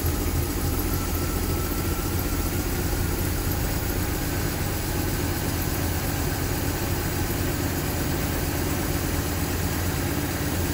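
1978 MGB's four-cylinder B-series engine idling steadily on twin SU carburettors while the mixture screw is being set, the engine note shifting slightly as the fuel mixture changes.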